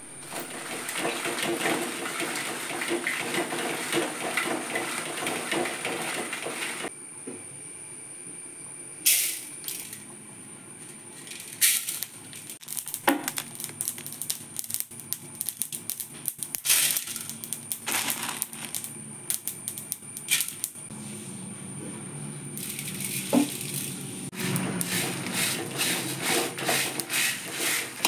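Dried red chillies and spices being dry-roasted and stirred in an aluminium pan: dense scraping and rattling for the first several seconds, then quieter with scattered sharp clicks, and busy stirring again near the end.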